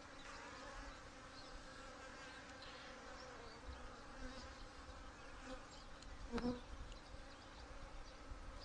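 Honey bees buzzing as a colony on an open frame of comb, a steady, fairly quiet hum. A brief knock about six and a half seconds in.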